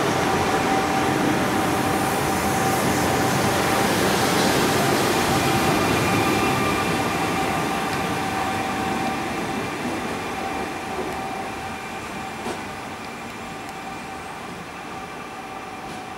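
Electric multiple unit pulling out of the station and moving away: rolling noise with a steady whine from its electric traction, fading as it recedes. A single click about twelve seconds in.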